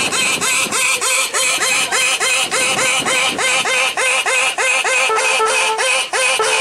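A rapid, evenly paced string of short quacking, squeaky sound effects, about four or five a second, each with a quick bend in pitch, played by a performer's sound-effects suit. From about five seconds in, some longer, steadier lower notes join the run.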